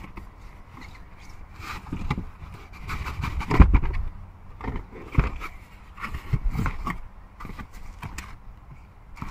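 Cardboard box being handled and opened on a car seat: irregular scraping and knocks of the cardboard, the loudest a thump about three and a half seconds in, with plastic-wrapped cables rustling near the end.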